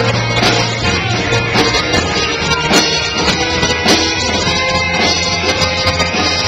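Live rock band playing through PA speakers: electric guitars over sustained bass notes and a steady drum beat.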